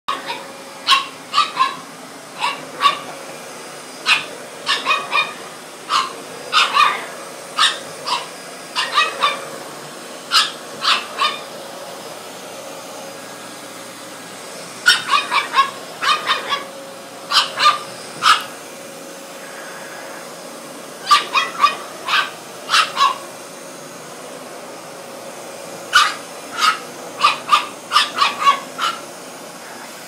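French Bulldog puppy barking in rapid clusters of short, high-pitched barks, with pauses of a few seconds between clusters, at the steady hum of a running Dyson upright vacuum cleaner.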